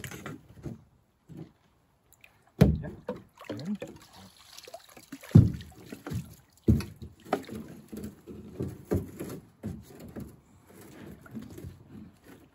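Irregular knocks and a few heavy thumps of gear and paddles against a canoe, with light water sounds; the loudest thump comes about halfway through.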